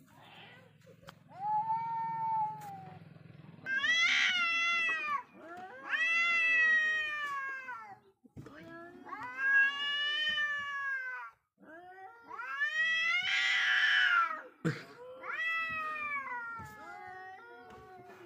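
Two cats, a black-and-white cat and a grey tabby, yowling at each other in a face-off: about six long, wavering, drawn-out calls one after another with short pauses, two of them with a harsh, hissing edge. These are the threat yowls of a territorial standoff between cats.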